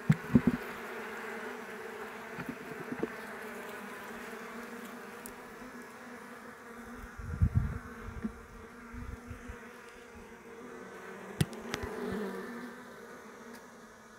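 Honeybees humming steadily from an open hive box, a dense even buzz. A few dull low knocks come about halfway through and again near the end.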